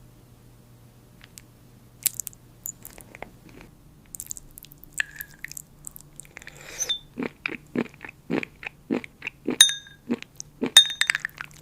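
Crisp crunching bites into brittle, glass-like food, coming about two a second from about seven seconds in, with a few short ringing glassy clinks among them.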